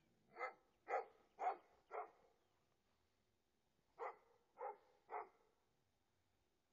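A small Havanese dog barking in short, high yaps: four quick barks about half a second apart, then after a pause three more.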